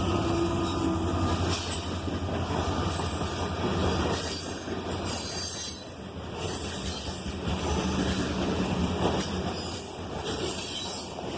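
Cars of a loaded grain freight train rolling past, a steady rumble of steel wheels on rail with clacking and some high-pitched wheel squeal.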